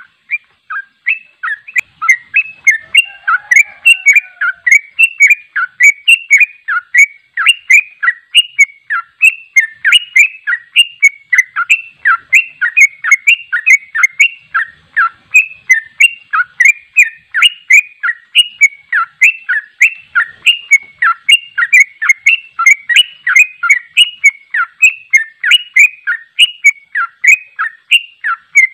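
Caged yellow-vented bulbul (trucuk) singing a loud, unbroken run of short bubbling chirps, about three notes a second, starting abruptly. This is the fast, non-stop 'ropel' song that keepers prize.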